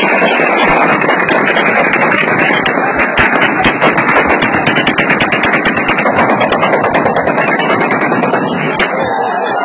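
Guns, some firing automatic, fired into the air in rapid, dense volleys, many shots a second, thinning out just before the end.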